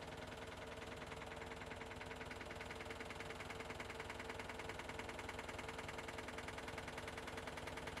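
Washing machine running: a steady hum with a fast, even rhythmic knocking from the drum mechanism, growing a little louder over the first few seconds.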